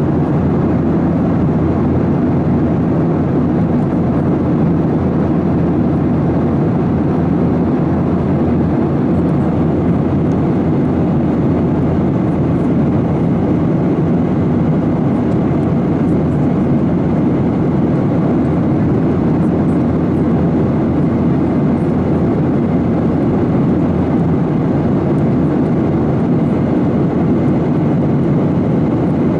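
Steady cabin noise of a jet airliner in cruise flight, the even rush of engines and airflow heard from a window seat over the wing.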